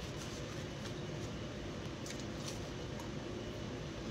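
Steady room hum, with a few faint soft clicks from chewing and mouth sounds partway through.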